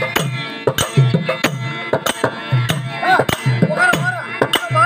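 Therukoothu music: rope-laced barrel drums beaten in a fast steady rhythm, about two deep strokes a second with sharp high strikes between them, over a held harmonium drone.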